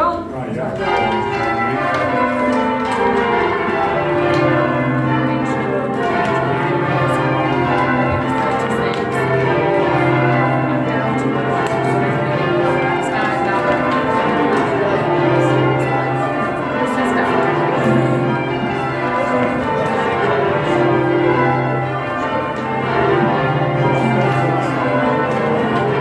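A ring of twelve church bells rung full-circle in English change-ringing style, heard from the ringing chamber below. The bells strike one after another down the scale, row after row, in a dense, even rhythm.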